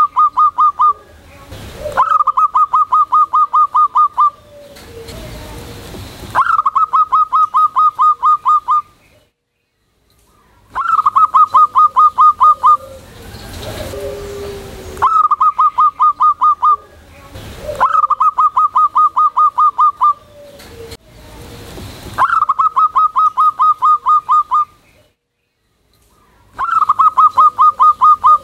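Local-strain zebra dove (perkutut) singing loudly: a repeated phrase of rapid, staccato cooing notes, each about two seconds long. The phrase comes about eight times, every two to four seconds.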